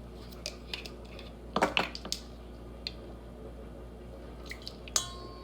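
Kitchen utensils and dishware clinking while olive oil is measured out: a few light clicks, a cluster of louder knocks and scrapes about a second and a half in, then near the end a sharp clink that rings on.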